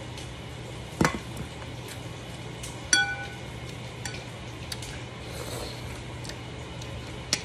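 Metal spoon clinking against a plate while eating: a sharp clink about a second in, a ringing clink about three seconds in, a few softer taps, and another sharp clink near the end. A low steady hum runs underneath.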